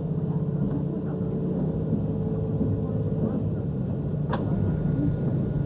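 Diesel express train's engine running with a steady low hum, heard from inside the passenger car as the train rolls slowly. A brief high squeak comes about four seconds in.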